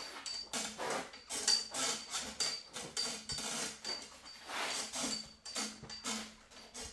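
Microfiber cloth wiping a freshly buffed, wet-misted clear-coat panel in repeated back-and-forth strokes, about two a second.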